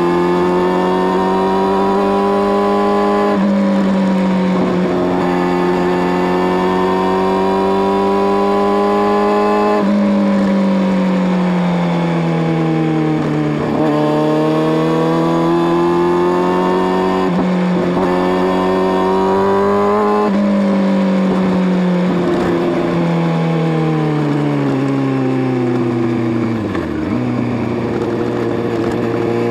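Motorcycle engine running under way, its pitch climbing slowly as it accelerates and stepping abruptly at gear changes several times, then sinking near the end as the bike slows.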